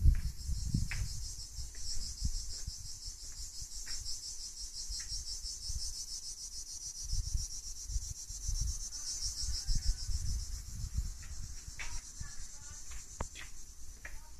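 Cicadas chirring continuously in a dense, finely pulsing high-pitched drone that fades near the end. Low bumps of handling noise and a few sharp clicks lie underneath.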